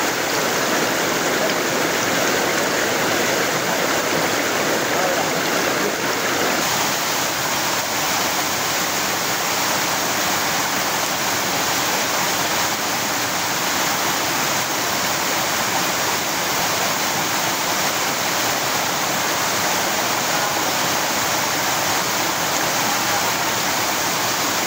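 Small waterfall and rocky mountain stream rushing steadily, loud and close. The rush changes character a little about seven seconds in.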